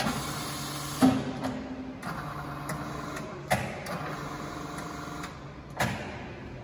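Amada HA250 band saw running with a steady motor and blade hum, broken by four sharp metallic knocks spaced one to two and a half seconds apart.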